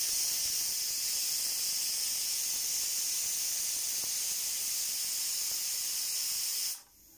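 Hawkins pressure cooker whistling. Steam jets out from under the lifted pressure-regulator weight in a steady, high hiss that cuts off suddenly near the end.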